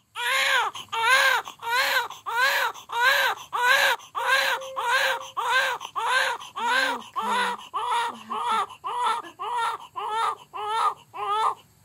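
Newborn baby crying just after birth: a steady run of short cries, about two a second, each rising and falling in pitch.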